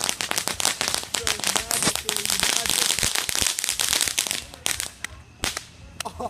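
Firecrackers going off in a dense, rapid crackle of sharp pops, thinning to a few separate bangs near the end.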